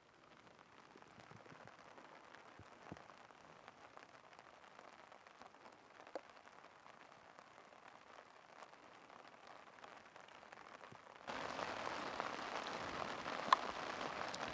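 Steady rain falling, with scattered individual drops ticking on a surface. About eleven seconds in, the rain suddenly becomes much louder and denser.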